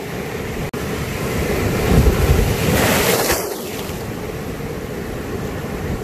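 Sea surf washing in over rocks, a steady rush of water that swells as a wave breaks about two seconds in and dies back by about four seconds.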